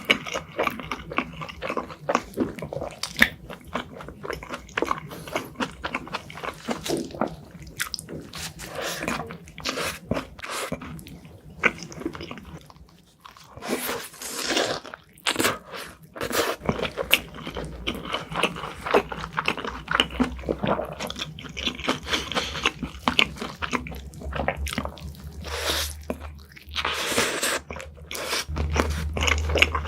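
Close-miked biting and chewing of a large burger: irregular wet smacks and crunches from the mouth as bite after bite is chewed. A low steady hum sits under the second half.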